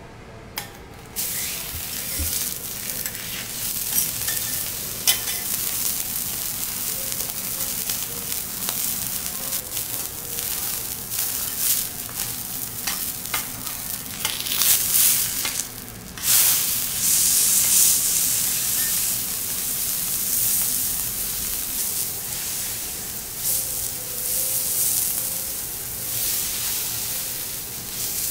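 Striploin steak sizzling on a hot steel teppanyaki griddle. The sizzle starts suddenly about a second in as the meat goes down on the salted steel, and breaks off briefly past the middle before it resumes.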